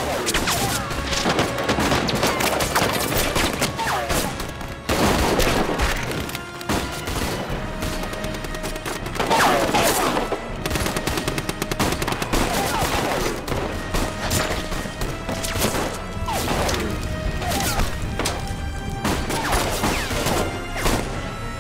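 Dense staged battle gunfire: repeated rifle shots and machine-gun bursts with bullets striking rock, mixed over a dramatic music score.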